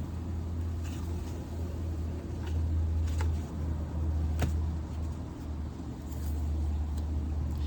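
Steady low rumble that swells and eases slightly, with a few faint clicks.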